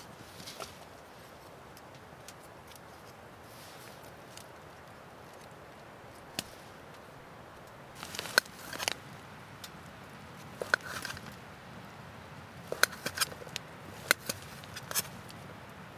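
Cooking utensils clicking and knocking against a pot in scattered, sharp taps, mostly in the second half, over a steady faint hiss.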